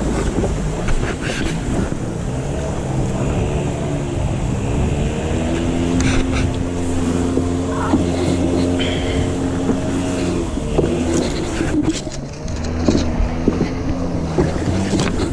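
A boat motor runs steadily while a wooden longboat is under way, with water rushing along the hull and wind on the microphone. The motor's hum fades out about three-quarters of the way through, and a few sharp knocks come through.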